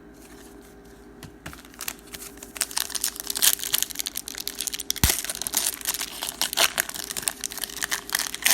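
Plastic wrapper of a trading card pack crinkling and crackling as it is torn open and handled, with a louder snap about five seconds in.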